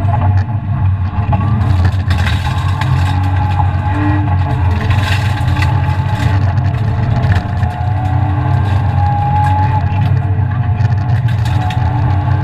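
BMW E36 323ti rally car's 2.5-litre straight-six running hard at high revs, heard from inside the cabin, with a brief dip in level about seven seconds in.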